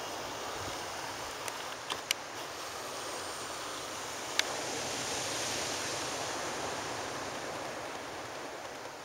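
Surf breaking on a pebble beach, a steady rush that swells about halfway through. A few sharp clicks stand out, most of them in the first half.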